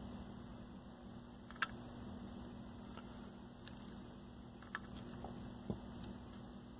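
Faint, scattered ticks and taps as a soldering iron and solder wire touch a circuit board while joints are soldered, about half a dozen in all, the clearest about a second and a half in. A low steady hum lies under them.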